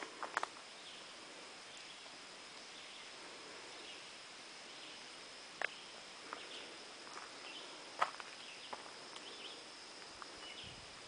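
A hiker's footsteps on a forest dirt trail: a few sharp, scattered crunches of steps or small twigs snapping. Behind them, faint chirps and a steady high whine.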